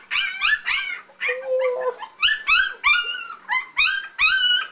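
Three-week-old Keeshond puppies whining and crying in a quick run of short, high, rising-and-falling squeals, about two or three a second, with one lower drawn-out whine early on. They are hungry and fussing to get at their mother's milk.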